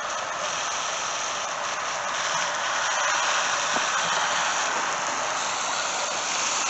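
Garden hose spraying a steady jet of water onto dry soil, a continuous hiss.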